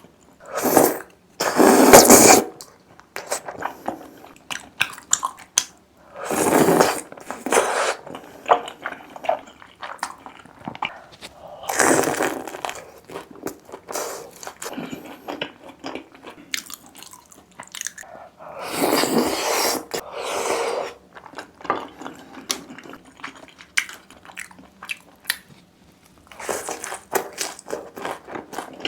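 Close-miked eating: loud crunchy bites into crisp food about five times, several seconds apart, with softer chewing between.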